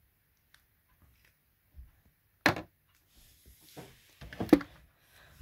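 Mostly quiet at first, then a single sharp knock about halfway through, followed by soft rustling and a few more knocks near the end: things being handled and bumped close to the microphone.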